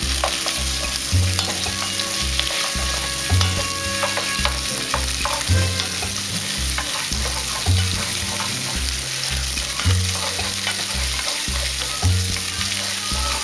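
Sliced boiled potatoes and onion frying in oil in a pot, sizzling, while a wooden spoon stirs and turns them with scattered knocks and scrapes against the pot. Under it runs a low note pattern repeating about every two seconds, like a background bass line.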